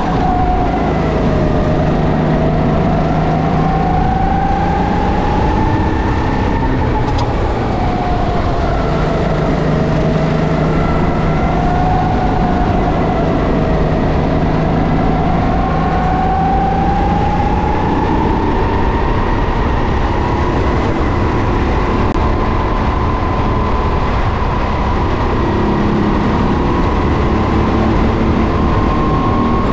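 Racing kart engine running at race pace, its revs rising and falling repeatedly through the corners, then climbing steadily and holding high for a long stretch in the second half.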